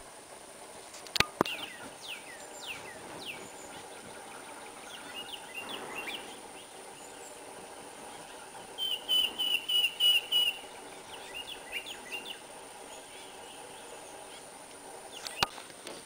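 Woodpecker calls: a few downward-sliding notes in the first few seconds, then a fast run of about eight sharp notes a little past the middle, with scattered single notes around it. Two sharp clicks, one near the start and one near the end.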